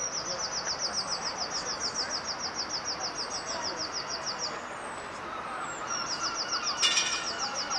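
Songbirds singing. One sings a long, fast trill of repeated high notes, pauses, then starts again. Another gives short high falling notes every second or so, and there is one sharp click near the end.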